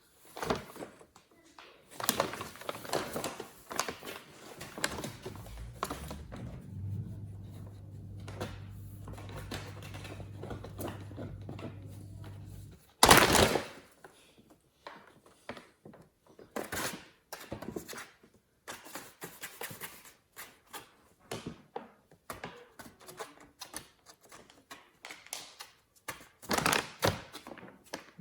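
A plastic bag rustling and crinkling in irregular bursts as kittens play in and on it, with the loudest crackle about halfway through.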